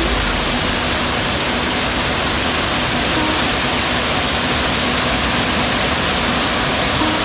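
Water pouring over a stepped weir and crashing into the pool below, a loud, steady rush of white water.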